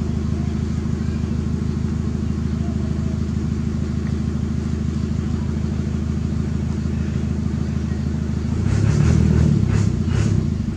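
An engine runs steadily with an even low drone. About nine seconds in, a baby monkey gives a few loud cries over it.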